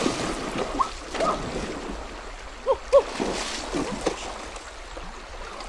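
Water splashing in a shallow stream as a person wades through it and churns the water with a stick, over the steady rush of the stream. Scattered plops and splashes, with two louder ones close together about three seconds in.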